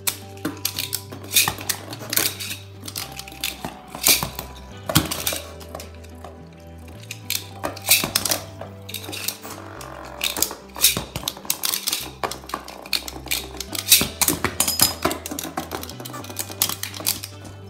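Beyblade Burst spinning tops clashing inside a bin, with many sharp, irregular clacks as they strike one another, over background music with a steady bass line.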